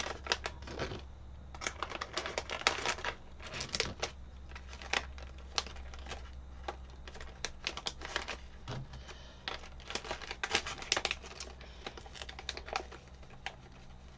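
Irregular light clicks and crinkles of small hard plastic pieces and a thin plastic bag being handled: diamond-painting multi-placer tips being worked back into their little bag.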